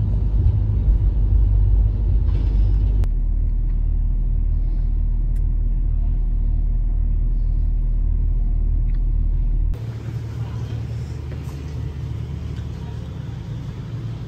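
Steady low engine rumble of a vehicle or vessel. It changes abruptly about three seconds in and drops quieter near ten seconds.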